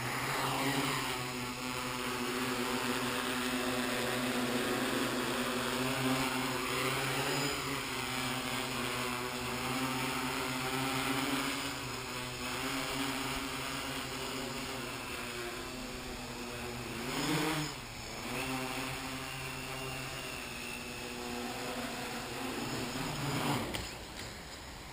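MikroKopter hexacopter's six electric motors and propellers running with a steady multi-tone hum, pitch shifting with the throttle. It spins up at the start, surges briefly about seventeen seconds in, then winds down near the end.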